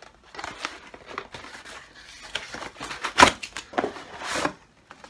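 Cardboard shipping box being opened by hand: irregular rustling and scraping of cardboard and paper labels, with louder tearing sounds about three seconds in and again just after four seconds, then stopping.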